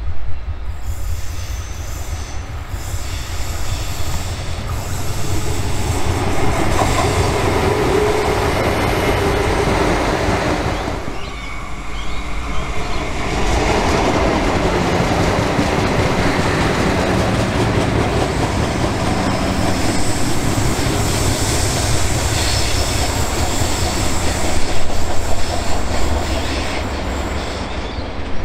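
Adelaide Metro diesel railcar running round a tight curve: diesel engine and rolling noise, with wheel squeal from the curve. The sound dips briefly about eleven seconds in, then the train noise picks up again.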